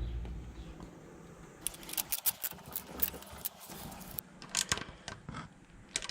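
Irregular light metallic clinks and rattles of hand tools and bolts being handled while an alternator is fitted to the engine. The clinks start about one and a half seconds in, after a low hum fades.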